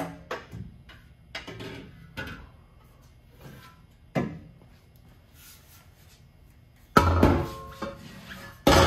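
A metal exhaust muffler and tailpipe section being worked off its hangers and lifted out, with scattered knocks and scrapes. Two loud metal clanks come near the end, the last one leaving a ringing tone.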